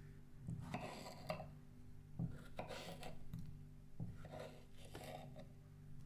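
Three scraping, rubbing strokes with a few light knocks between them, over a faint steady hum: kitchen work with food or utensils while baking a cake.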